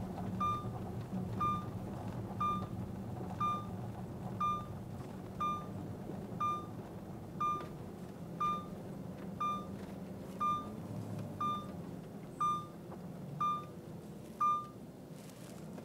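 A car's electronic dashboard chime beeps once a second over the cabin's engine and road noise, then stops near the end.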